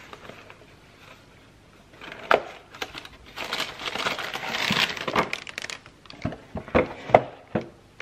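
A cardboard pancake-mix box being handled on a wooden board: crinkling and rustling of the packaging for a couple of seconds in the middle, then several sharp knocks as it is moved and set down.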